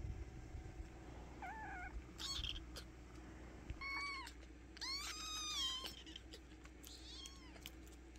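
Kittens meowing: about five short high-pitched meows, each rising and falling, the longest lasting about a second a little past the middle.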